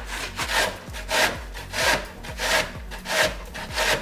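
Zucchini being grated on the coarse side of a metal box grater: a rasping stroke about every two-thirds of a second, six in all.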